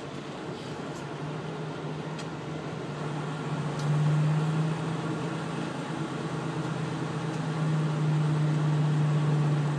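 Truck's diesel engine heard from inside the cab, a steady low hum under road and cab noise, getting louder about four seconds in as the truck pulls slowly forward in the weigh-station line.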